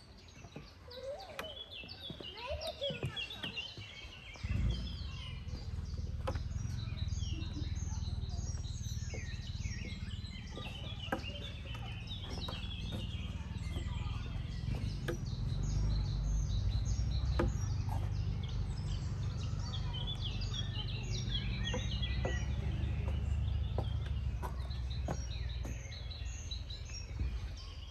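Several songbirds chirping and singing in quick, overlapping phrases. About four seconds in, a steady low rumble starts suddenly and continues under the birdsong.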